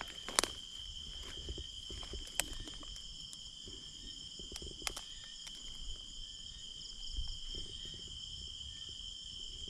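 A steady high chirring chorus of night insects, with a few sharp clicks and some low rustling.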